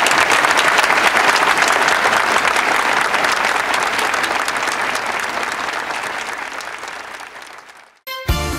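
A large crowd applauding a speech's close, the clapping fading out gradually over several seconds. Near the end it cuts off and music with a beat starts.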